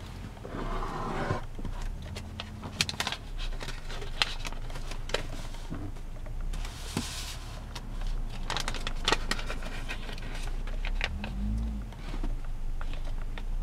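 Origami paper being folded and creased by hand: crackling and rustling, with many sharp snaps as the creases are pressed. There are longer rustles about a second in and around seven seconds, as the pleated sheet is handled and opened out.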